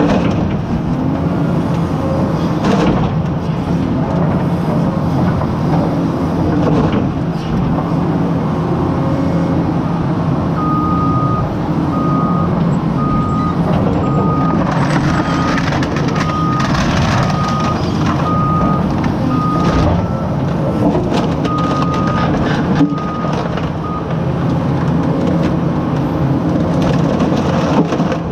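Excavator's diesel engine running steadily under load while its bucket crushes a car, with metal crunching and crumpling at intervals. From about ten seconds in until a few seconds before the end, a warning alarm beeps steadily, a little over once a second.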